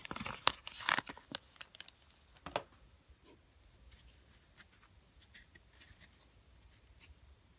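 Foil trading-card pack wrapper crinkling and tearing for about the first second, then a few sharp clicks and faint scattered rustles as the cards are handled.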